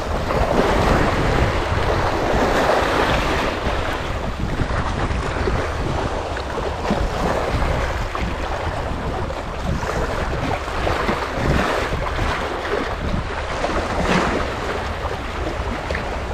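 Wind buffeting the microphone, a heavy low rumble, over a steady wash of water.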